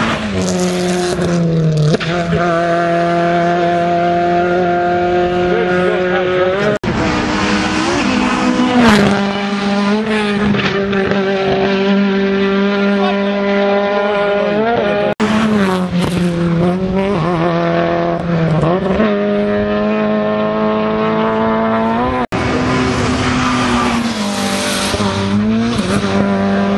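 Rally cars at full throttle on a stage, each engine note held high and steady for several seconds, then dipping and rising again around a gear change or lift as the car crests the jump. The sound is a series of cars, broken by sudden cuts about a third, halfway and four-fifths of the way through.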